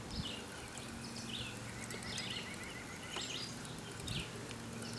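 Outdoor ambience with a bird giving short, high chirps over and over, roughly once a second, over a steady background hiss. A faint rapid ticking runs for about a second near the middle.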